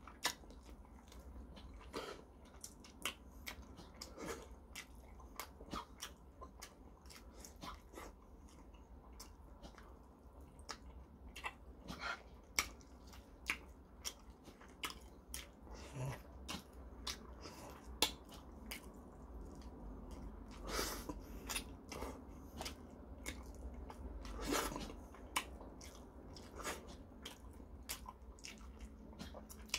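A person chewing and eating chicken, pulling the meat off the bone by hand, heard as irregular short clicks and smacks of mouth and fingers.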